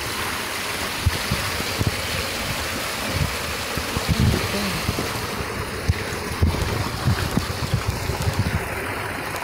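Steady rush of water from a nearby waterfall or stream, with irregular low thumps of wind buffeting the microphone.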